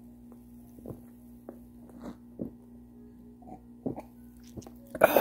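Small clicks and taps of eating and chewing over a steady low hum, ending in a sudden loud breathy exhale.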